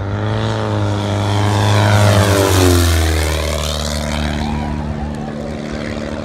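Single-engine aerobatic propeller biplane making a low pass: the engine and propeller drone swells, peaks about two to three seconds in, and drops in pitch as the plane goes by, then carries on more quietly as it pulls away.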